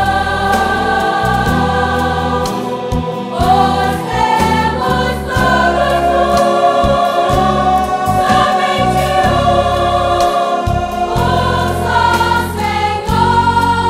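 Women's vocal ensemble singing a Portuguese-language gospel song in close harmony, holding long chords that shift every second or two, over an electric bass guitar.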